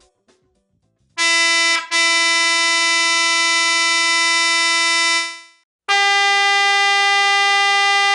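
Wolo Persuader Model 110 low-tone stainless steel electric trumpet horn sounding a short blast and then a steady blast of about three seconds. About six seconds in, the Model 115 high-tone horn, plainly higher in pitch, starts a steady blast.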